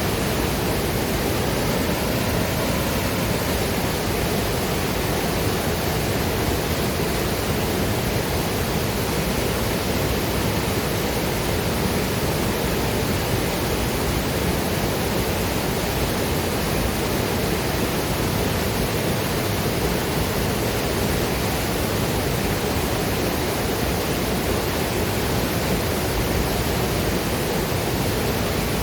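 Waterfall and river water rushing, a steady, loud and even roar of falling water.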